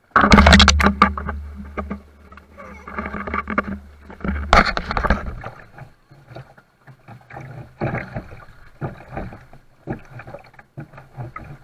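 Handling noise from an action camera being picked up and moved: a loud knock just after the start, a second about four and a half seconds in, and scattered rubbing and knocking later, over a low steady hum for the first five seconds.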